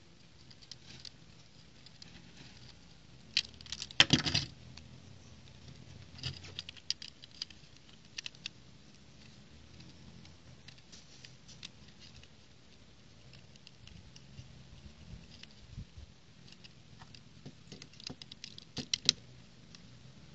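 Small plastic building-brick toy vehicle handled in the fingers: scattered light clicks and rattles of plastic parts. There is a short flurry about four seconds in, which is the loudest, smaller groups a little after, and another flurry near the end.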